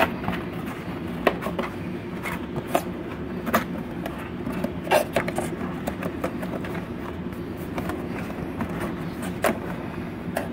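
Cardboard display box being folded by hand, flaps bent down and tabs pushed into slots: scattered sharp cardboard clicks and knocks every second or two over a steady background hum.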